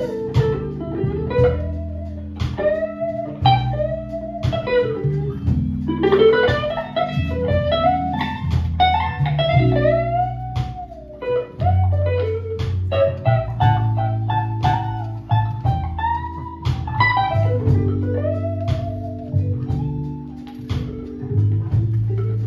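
Live blues band: an electric guitar solo of bent notes that rise and fall, over held keyboard chords and bass, with a steady beat about once a second.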